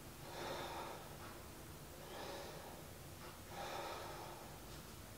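A woman's slow, audible breathing: three soft, faint breaths while she holds a yoga pose.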